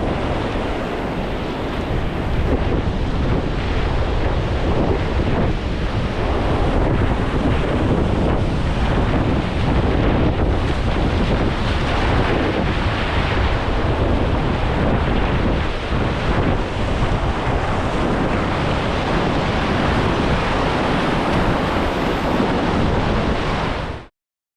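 Loud, steady rush of river water mixed with wind buffeting the microphone, cutting off suddenly near the end.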